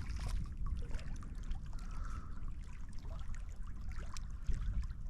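Wind rumbling on the microphone, with light trickling water at the shoreline and scattered small clicks.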